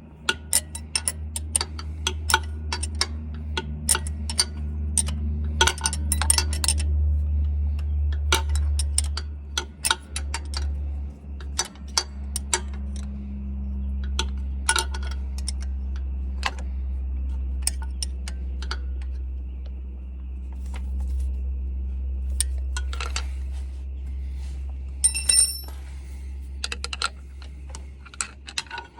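Metal hand tools and parts clinking and tapping irregularly during mechanical work on a tractor, over a steady low hum. A brief metallic ring sounds near the end.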